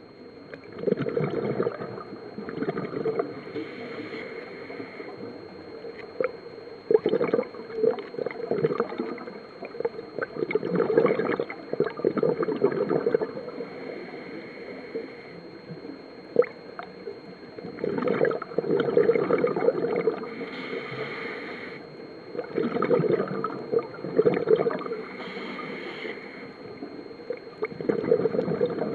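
Scuba diver breathing through a regulator underwater: exhaled bubbles gurgling in bursts every few seconds, with hissing inhalations between some of them.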